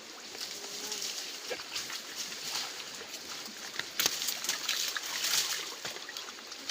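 River water splashing and sloshing, with irregular small clicks and one sharper knock about four seconds in.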